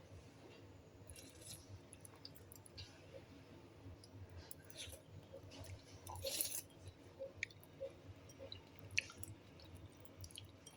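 Quiet eating sounds: someone chewing a mouthful of herbal chicken porridge, with scattered small clicks and ticks, the sharpest about six and nine seconds in.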